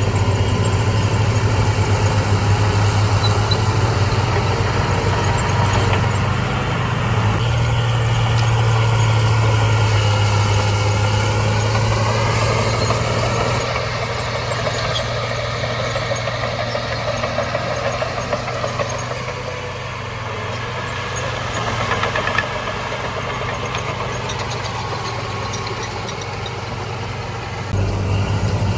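Heavy earthmoving machine's diesel engine running with a steady low hum. It is louder over the first half, eases off about halfway, and picks up again near the end.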